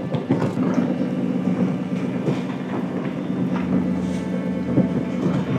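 A ship's engine running with a steady low drone, with scattered knocks and rattles over it.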